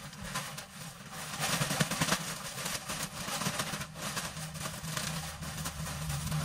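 Pine flake shavings pouring out of a bag onto the chicken coop floor: a steady dry rustle and crackle, with the bag crinkling as it is shaken out. A constant low hum runs underneath.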